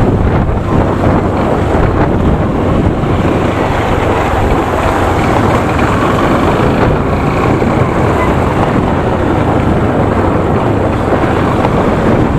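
Motorcycle running while being ridden, its engine a steady low drone under loud wind buffeting on the microphone.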